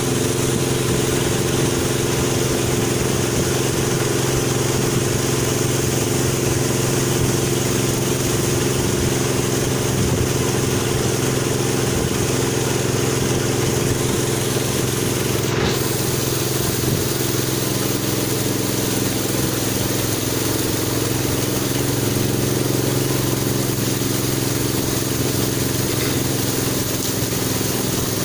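Longtail boat's engine running at a steady speed while under way, over a constant rushing hiss. The engine note shifts slightly a little past halfway.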